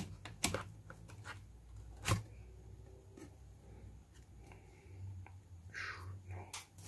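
Hands handling a phone screen protector and its paper sleeve: faint rustling with scattered small clicks and taps, the sharpest about two seconds in, over a low steady hum.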